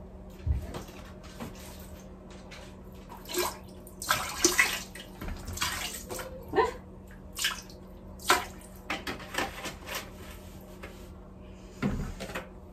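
Water splashing in a toilet bowl in a string of short, irregular bursts as the toilet is cleaned with bleach.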